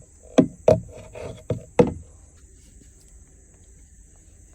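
Sharp knocks of hard objects, about five in quick succession over the first two seconds, then only a faint steady background hiss.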